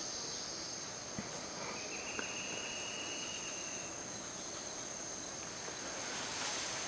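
Insects droning steadily in high, even tones, with a second, higher-pitched insect joining about two and a half seconds in and a brief lower buzz around two to three seconds in; a few faint clicks and a short swell of rustling noise near the end.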